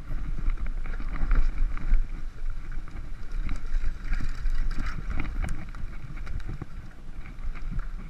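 Mountain bike riding down a dirt forest trail: knobby tyres rumbling over earth and roots, with the bike rattling and knocking over bumps throughout, and wind buffeting the microphone.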